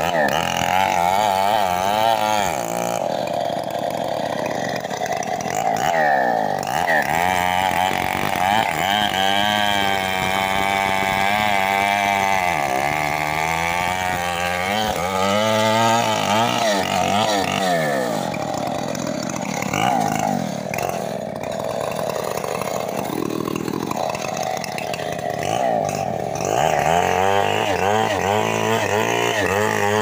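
Two-stroke Stihl MS381 chainsaw running hard as it cuts through the base of a teak trunk. Its engine pitch drops and climbs again several times as the chain loads up in the cut and is eased off.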